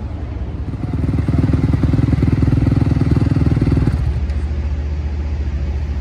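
Supercross dirt bike engine on a sound test: idling, then revved up about a second in and held at a steady raised rpm for about three seconds while its exhaust noise is measured, then dropping back to idle.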